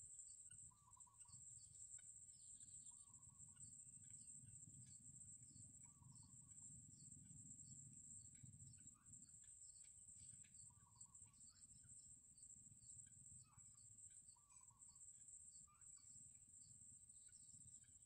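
Faint outdoor ambience: a steady high-pitched insect drone, with soft short bird calls every few seconds and a low rumble underneath.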